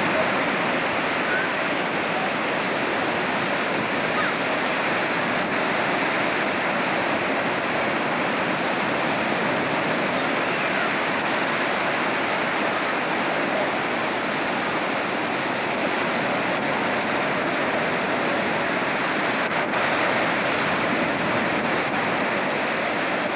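Ocean surf breaking and washing in: a steady, even rushing noise.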